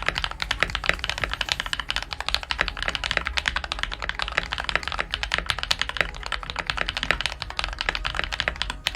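Fast, continuous typing on a mechanical keyboard: a dense, unbroken run of key clicks, many strokes a second.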